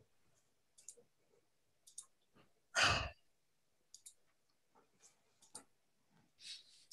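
A single audible exhale, like a sigh, about three seconds in, among a few faint small clicks.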